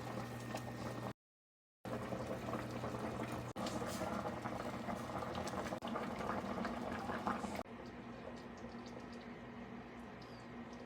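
A pot of chicken soup boils steadily, with dense bubbling. The sound cuts out briefly about a second in and drops to a quieter, softer simmer for the last few seconds.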